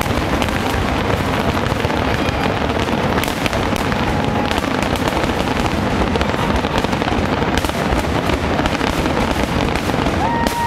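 Aerial fireworks display in a dense barrage: shell bursts and crackling follow one another without a break, keeping the level steady and loud.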